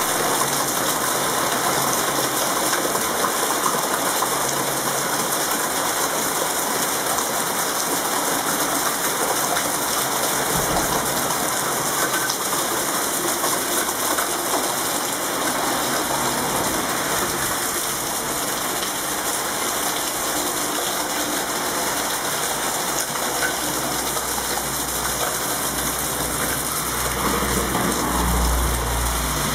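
Steady rain falling, an even dense patter that holds level throughout. A low rumble rises near the end.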